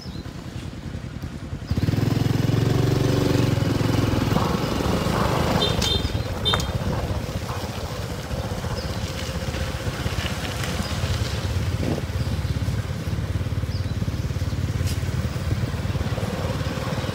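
A small motorcycle engine running. It comes in suddenly about two seconds in, is loudest for the next couple of seconds, then settles into a steady lower run.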